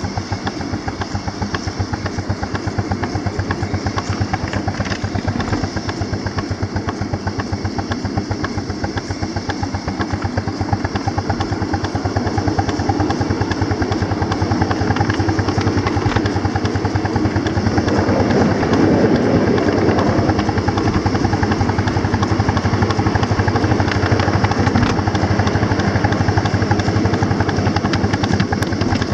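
Miniature live-steam locomotive running, its exhaust chuffing in a rapid, steady beat, heard close up from the engine itself. It grows louder in the second half.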